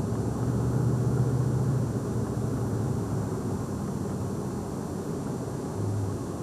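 Car engine and road noise heard from inside the moving car's cabin: a steady low drone.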